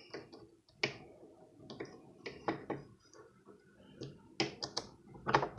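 Irregular small metallic clicks and taps as a ball bearing and the small metal parts of a spinning reel's gear housing are fitted by hand, with a quick run of clicks about four and a half seconds in.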